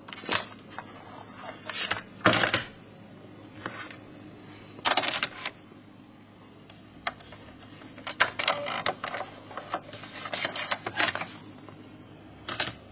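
Amiga 1200 computer making short, irregular clusters of sharp mechanical clicks and rattles, spaced a second or two apart, over a low background hum.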